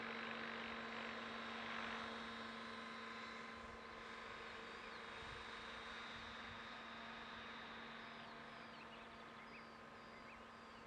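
Logo 550SX electric RC helicopter flying at a distance: a steady insect-like buzzing whine of its motor and rotor blades, a little louder in the first two seconds, then slowly fading.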